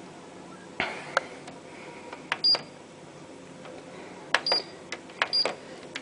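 Control-panel buttons of a Hotpoint Ultima WT960 washing machine being pressed: several sharp clicks and three short high electronic beeps, spaced a second or two apart, as the programme options are selected.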